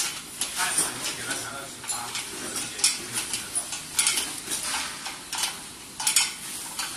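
Two open-end spanners clinking and scraping against a nut and bolt as a caster is tightened onto a steel frame leg: irregular metal clinks, a few a second, one of the sharpest about six seconds in.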